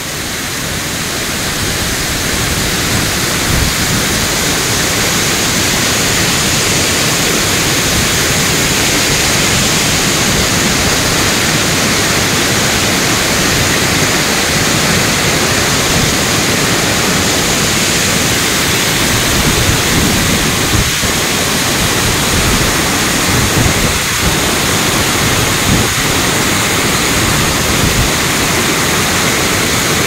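Waterfall: a loud, steady rush of falling water close by, building over the first couple of seconds and then holding even.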